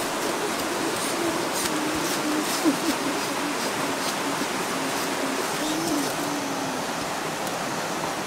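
Steady rush of a shallow river running over rocks, with a faint low, wavering cooing that comes and goes and a single sharp knock about a third of the way in.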